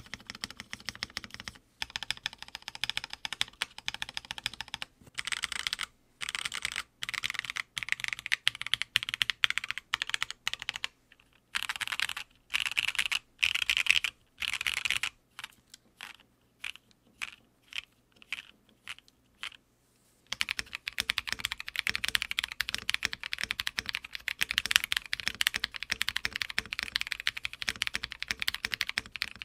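Typing on an Odin Gaming Nova65 gasket-mount 65% mechanical keyboard with a polycarbonate plate. There are bursts of fast keystrokes, then a run of single key presses about two a second. After a brief pause, steady continuous typing follows.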